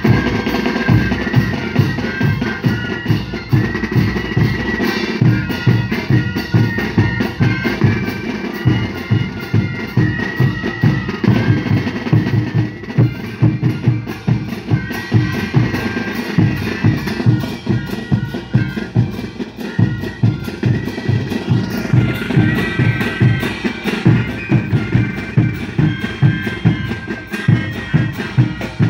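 An Andean flute-and-drum band playing. A group of wooden duct flutes carries a melody in unison over bass drums, snare drums and cymbals beating a steady rhythm.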